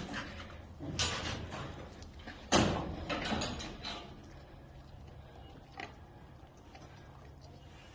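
A Staffordshire bull terrier sniffling through its nose: a run of short, noisy sniffs, the loudest about two and a half seconds in, trailing off after about four seconds.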